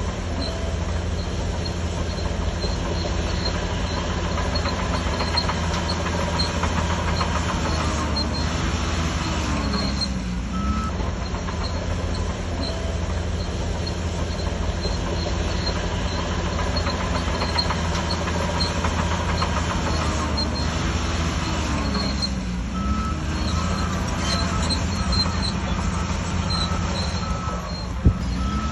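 Shantui DH17C3 crawler bulldozer running under load as it pushes soil: a steady diesel drone with track and machinery clatter. The engine note dips and recovers twice, about ten seconds in and again after about twenty-two seconds.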